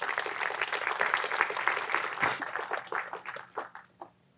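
Audience applauding, a dense patter of many hands clapping that thins out and dies away about three and a half seconds in.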